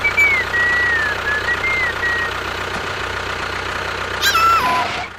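Tractor engine idling with a steady knocking beat. A thin, wavering whistle-like tone runs over it for the first two seconds, and a short high call falls in pitch about four seconds in.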